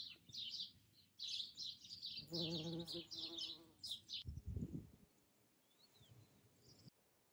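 Small birds chirping with short, quick notes, and a bumblebee buzzing for about a second at a lemon blossom, about two seconds in. A soft low thump follows a little after halfway, then only a few faint chirps.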